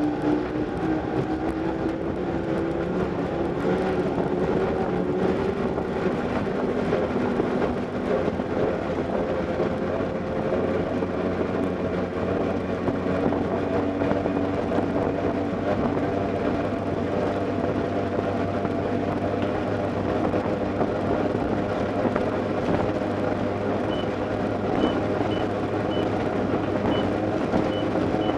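Boat engine running steadily at high speed, with its drone holding a constant pitch. Near the end a series of short, high beeps sounds about once or twice a second.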